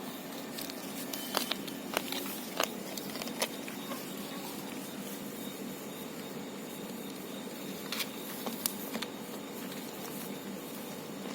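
Puppies at a milk bowl: scattered small clicks and taps, a cluster in the first few seconds and another around eight seconds in, over a steady low hum.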